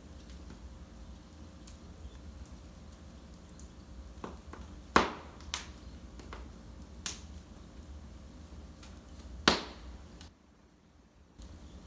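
Wood fire in a fireplace crackling, with scattered sharp pops; the two loudest come about five and nine and a half seconds in. The sound drops out briefly about ten seconds in.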